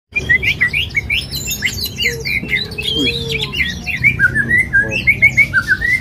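Caged songbirds singing, a dense stream of short, quick chirps and whistled notes overlapping one another, over a low background rumble.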